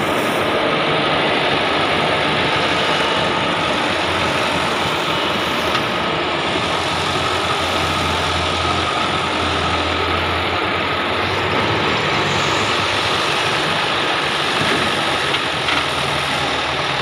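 Farm tractor engine running steadily as it tows a water tanker, under a loud, even hiss.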